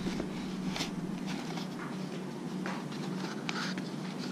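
Handling noise from a DJI Osmo Mobile gimbal being touched and gripped in its moulded box tray: a few scattered soft taps and rustles over a low steady hum.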